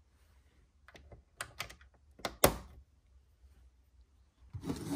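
LEGO pieces clicking and tapping as small plastic tiles are handled and pressed into place. There are a handful of sharp clicks in the middle, the loudest about two and a half seconds in, then a brief rustle near the end.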